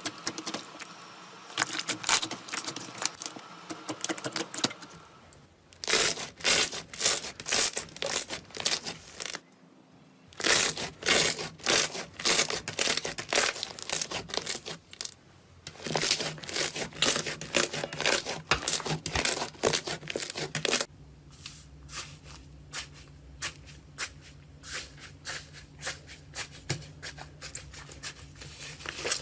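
Slime being squeezed and pressed by hand, giving dense runs of sticky pops and crackles in several separate stretches.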